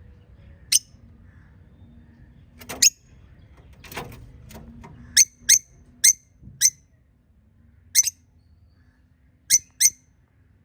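Small pet parrots giving short, sharp, high squeaky chirps, about ten in all and spaced irregularly, over a faint low hum.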